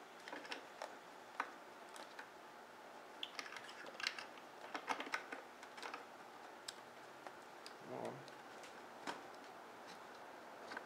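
Light, irregular clicks and taps of plastic, busiest in the middle, as hands fit the cap back onto a Harley-Davidson V-Rod's coolant overflow bottle.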